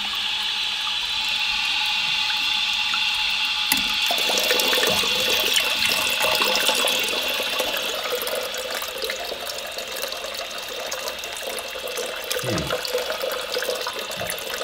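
Toilet tank refilling: the ball-float fill valve hissing as water streams from the refill tube into the overflow pipe and splashes into the tank, because the water supply is not fully shut off. The hiss eases somewhat about eight seconds in.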